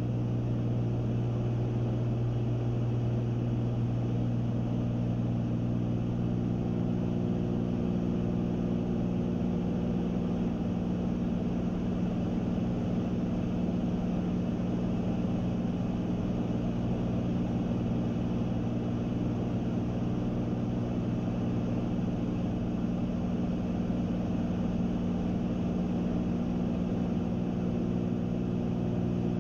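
Steady drone of a Cessna 310's twin piston engines and propellers heard inside the cabin in flight: an even, low hum made of several fixed tones that stays unchanged throughout.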